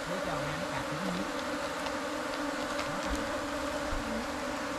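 A mass of wild honey bees buzzing: a steady, even hum with a higher overtone above it.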